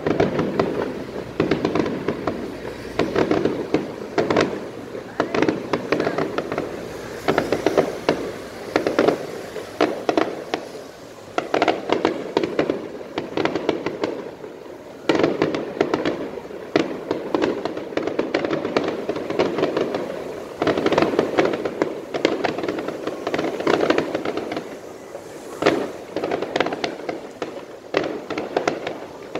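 Aerial fireworks display: shells bursting in quick, irregular succession, a dense run of bangs and crackles that eases off briefly about halfway through before picking up again.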